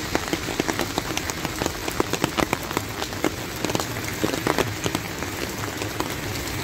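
Steady rain falling on wet pavement and street, with frequent sharp, irregular taps of individual drops.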